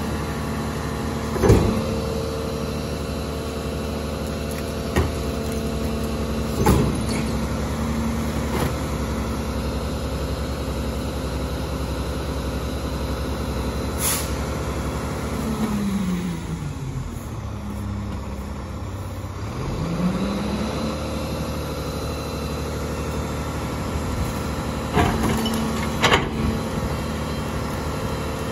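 McNeilus split-body rear-loader garbage truck running with its engine raised while the packer compacts heavy trash, with several sharp knocks and bangs from items going into the hopper. About halfway through, the engine drops to idle for a few seconds, then revs back up for the next packing cycle.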